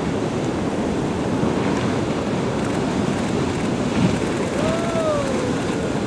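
Big ocean waves breaking: a steady rush of surf, with wind buffeting the microphone.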